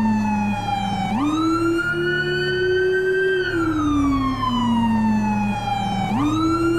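Police siren wailing in slow cycles: the pitch jumps up about a second in, climbs gently, then slides down for a few seconds before jumping up again near the end. A steady low hum runs underneath.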